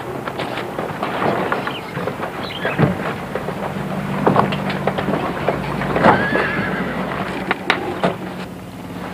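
A harnessed wagon horse stamps and shifts, its hooves knocking on hard ground, and it gives a short whinny about six seconds in.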